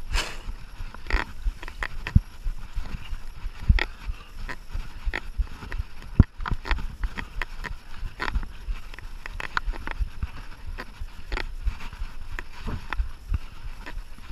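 Mountain bike ridden over a rough trail: a low rumble with irregular knocks and rattles, several a second, as the bike jolts over bumps.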